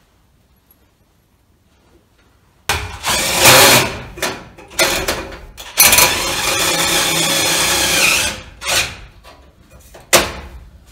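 Cordless drill driving screws into sheet-metal stove pipe. After a quiet start it runs in a few short bursts, then a steady run of about two seconds, then more short bursts.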